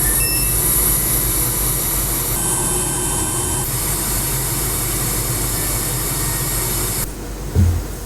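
Steady rushing noise of blowing air with a faint hum, cutting off about seven seconds in, followed by a short low thump near the end.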